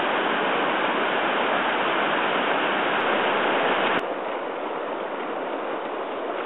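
Whitewater rapids rushing, a loud steady wash of water noise. About four seconds in it cuts off sharply to a quieter steady hiss of open water.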